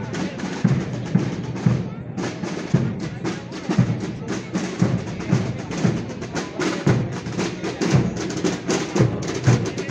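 Procession drums of a Holy Week brotherhood beating a slow, steady march: a rapid rattle of snare drums over deep bass drum strokes falling a little under once a second.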